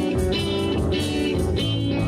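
Live blues band playing, electric guitars over drums with a steady beat.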